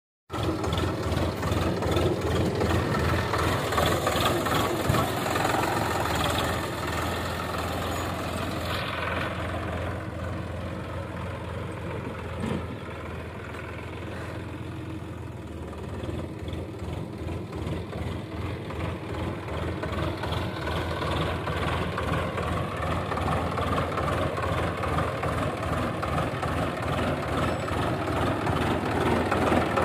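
Sonalika DI 45 RX tractor's diesel engine running under way as it drives over loose heaped soil, with a steady throbbing pulse. It grows fainter in the middle as the tractor pulls away, then louder again as it comes close.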